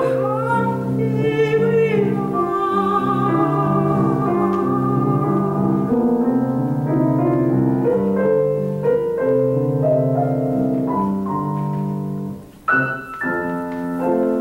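Soprano singing a classical art song with vibrato, ending on a long held note, accompanied by a grand piano. The piano then plays on alone. After a brief break near the end, it strikes a chord that rings out.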